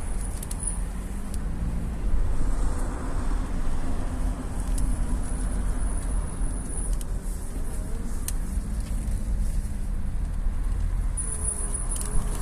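Car idling while the front wheels are turned toward full lock. A faint creak comes from the steering or front suspension, the fault the owner is recording.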